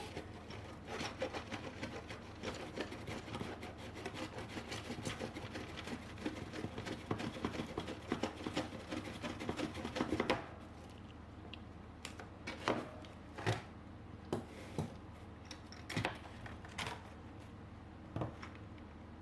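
Close handling noises: quick rubbing and clicking for about ten seconds, then six or so separate sharp clicks or knocks a second or so apart.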